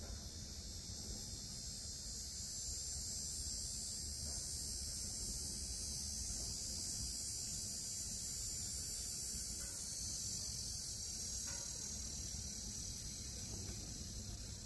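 A steady high-pitched chorus of insects buzzing over the low rumble of an oak wood fire burning in a smoker's firebox, with a few faint pops from the fire in the second half.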